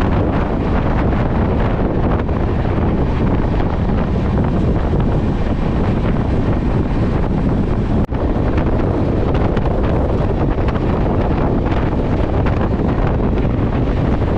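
Wind buffeting the microphone at the open door of a passenger train running at speed, over the train's steady rumble. There is a brief break about 8 seconds in.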